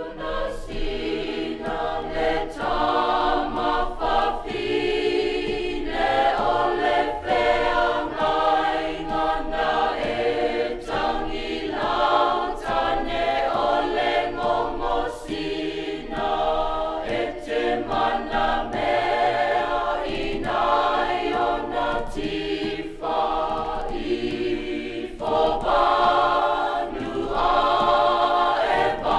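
A choir singing, several voices holding sustained notes together.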